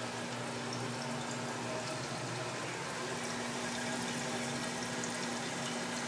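Fill valve of a 1958 Standard compact toilet tank running steadily as water hisses into the tank, with a faint low hum: the tank refilling after a flush.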